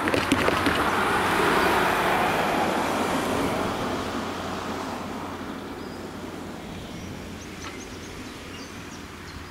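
A car drives over the railway level crossing, its tyres knocking on the rails, then passes close by and fades away down the road.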